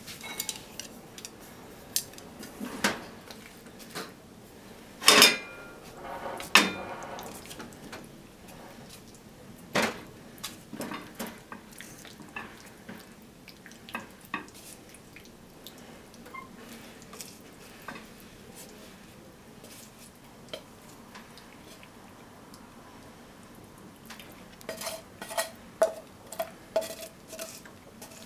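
A frying pan and spatula knocking, scraping and clinking against a ceramic bowl as stir-fry is served out, in irregular knocks, the loudest about five seconds in. Near the end comes a quick run of ringing clinks as the spatula scrapes the last of the food from the pan.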